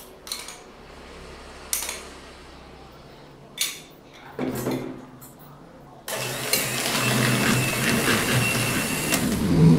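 A few short knocks, then an electric hand mixer switched on about six seconds in, its motor whirring steadily as the beaters mix flour into muffin batter, with a thin high whine over the noise.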